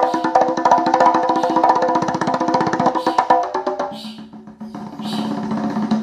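Music with rapid wood-block-like ticking percussion and a melody, played through a 6-inch ACR 660 woofer driven straight from a 400-watt amplifier, without the nonpolar electrolytic capacitor in line, so the bass is not held back. About four seconds in, the fast ticking thins out and a steady low note carries on.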